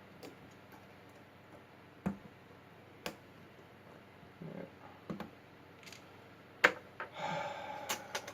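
Scattered small metal clicks and taps from a Kwikset lock being handled and worked on, the sharpest about two-thirds of the way in, followed by a short scraping rasp near the end.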